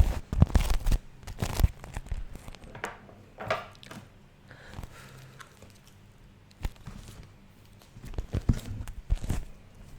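Beeswax food wrap crinkled, crumpled and peeled apart in the hands, with sharp sticky crackles in clusters; it is busiest in the first two seconds and again near the end, quieter in between.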